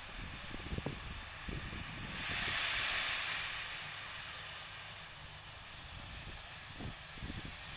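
Steam tank locomotive hissing steam from its open cylinder drain cocks, with a louder burst of hiss about two seconds in that lasts a second and a half, and a few soft low beats.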